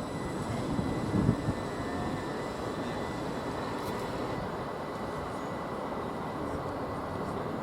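Train running through a station: a steady rumble with a few low thumps in the first second and a half, plus a faint steady high whine.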